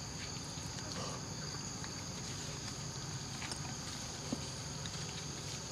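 Steady high-pitched drone of an insect chorus, with a soft click about four seconds in.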